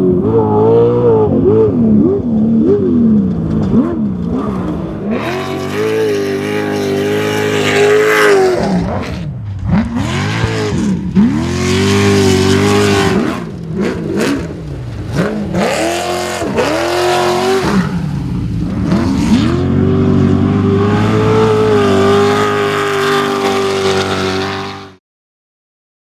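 Off-road race vehicle engine at full race pace, revving up and falling back over and over as the throttle is worked, with stretches held at high revs. The sound cuts off suddenly about a second before the end.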